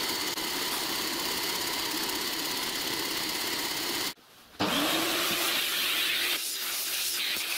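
Milling machine running with an end mill cutting a port slot into a solid cast-iron cylinder block: a steady motor hum with a whine. After a brief break about four seconds in, the motor spins up again with a rising tone and a steady hiss over it.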